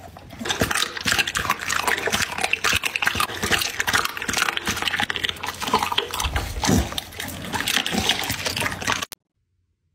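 A dog eating raw chicken: wet, smacking chewing and slurping with many small clicks. It cuts off suddenly about nine seconds in.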